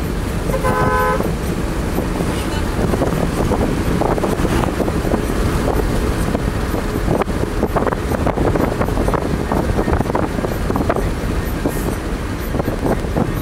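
A vehicle horn honks once, briefly, about half a second in, over the steady rumble of road and wind noise from a moving vehicle.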